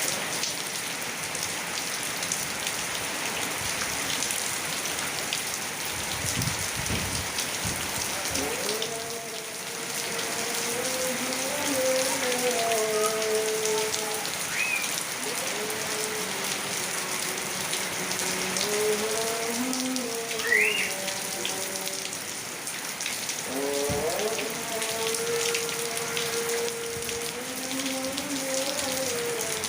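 Heavy rain pouring down steadily. From about eight seconds in, a faint, drawn-out melodic tone rises and falls in pitch behind the rain, coming and going.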